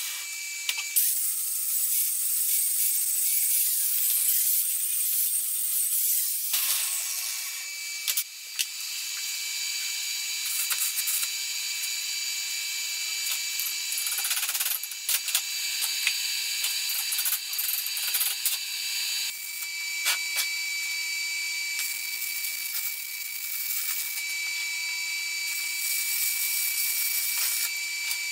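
Electric arc welding on a steel pipe held in a vise: a steady crackling sizzle with a thin whine, broken off briefly a few times as the arc stops and restarts.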